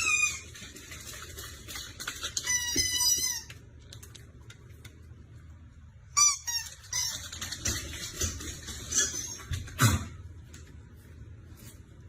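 Short, high-pitched animal calls with a wavering pitch: a run of them about two and a half seconds in and another about six seconds in. A single sharp knock comes near the end.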